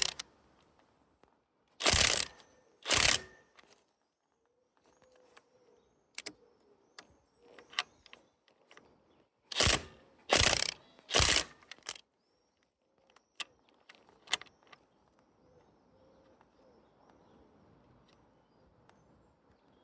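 Sharp metallic clicks and clanks of hand tools being handled during motorcycle maintenance: two loud knocks about a second apart near the start, three more in quick succession around the middle, and lighter ticks in between.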